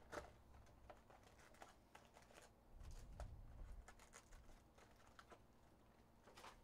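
Faint, scattered clicks and taps of foil trading-card packs being pulled from a cardboard box and stacked.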